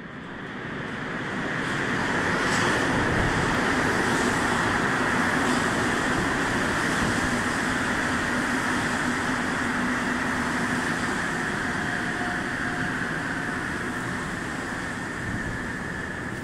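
Montreal Metro rubber-tyred train pulling into an underground station. A steady rushing rumble builds over the first two seconds, then eases gradually as the train slows toward a stop.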